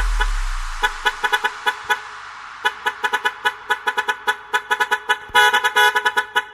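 Truck horn honking in quick rhythmic toots on one pitch, cut into a dance remix. A hiss fades out over the first two seconds, and from about five seconds in the blasts become longer and louder.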